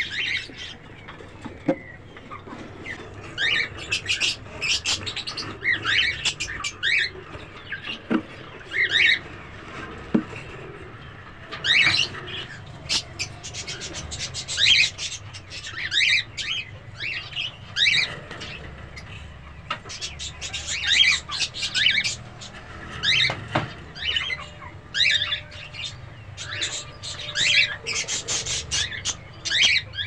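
Cockatiels calling: many short, high chirps and squawks, irregularly spaced, some in quick runs of several.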